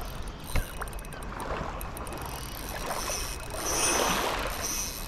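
Shallow water sloshing and splashing while a hooked fish, which feels like a flathead, is played on a light spinning outfit. A short click comes about half a second in, and the splashing swells briefly near the middle.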